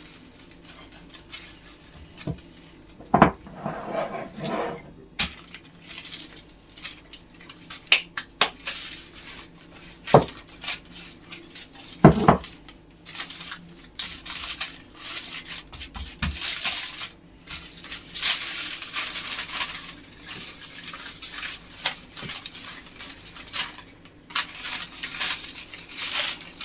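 Kitchen utensils and dishes clinking and knocking on a worktop while pizza dough is prepared: scattered sharp knocks in the first half, then a busier stretch of scraping and rustling from about halfway through.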